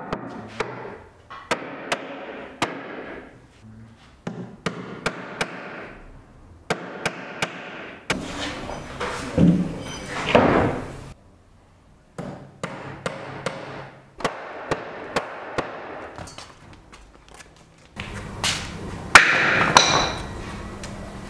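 Hammer blows on wooden boards: short runs of sharp, separate strikes with pauses between them. A scraping noise comes in about halfway through, and a louder impact with a rush of noise comes near the end.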